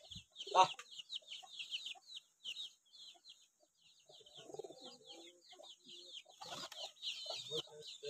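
Chickens in a farmyard flock: a steady stream of short, high, falling peeps several times a second, typical of chicks, with lower hen clucking joining about halfway through and again near the end.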